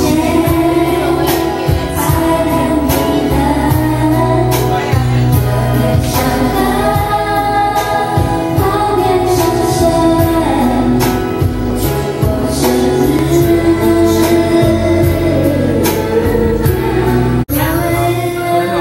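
A woman singing karaoke into a microphone over a loud backing track with a steady beat. The sound cuts out for an instant near the end.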